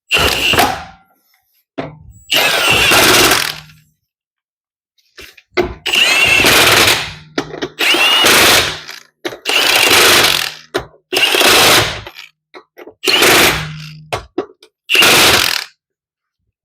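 Cordless impact wrench running lug nuts down snug on a wheel: about eight short bursts of hammering, each roughly a second long, with brief pauses between nuts.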